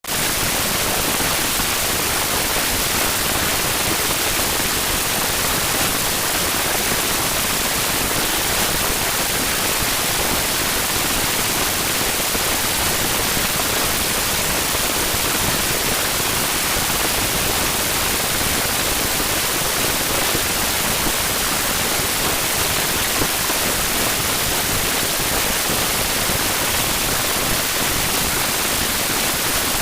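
Steady, loud hiss of white noise, like static, with no change and no other sound on top.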